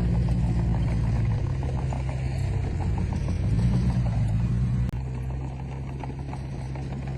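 Heavy-equipment diesel engine running under load, its pitch and level swelling and easing. About five seconds in the sound breaks off abruptly, then a steadier, quieter engine sound carries on.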